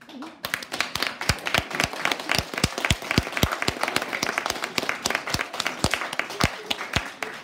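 An audience applauding in a small room, starting suddenly about half a second in. One pair of hands close by claps loudly about three times a second over the rest.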